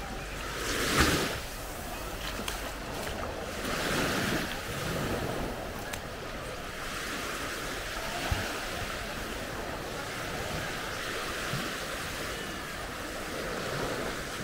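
Small Baltic Sea waves breaking and washing up a sandy beach, a steady wash of surf with swells, the loudest about a second in and another around four seconds.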